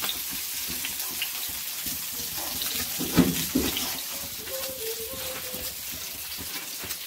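Small turmeric-coated fish frying in oil in a pan, a steady sizzling hiss, with a brief knock about three seconds in.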